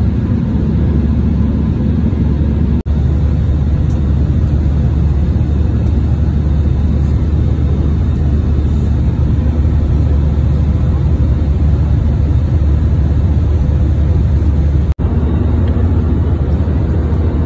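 Steady drone of an airliner in flight heard from inside the passenger cabin: engine and airflow noise, heaviest in the low end. It cuts out for an instant twice, about 3 seconds in and near the end.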